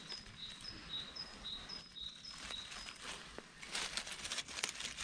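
A small songbird repeats a high two-note phrase about five times, over the first three seconds. In the last second and a half, dry leaf litter crackles and rustles as a hand with a knife works among it.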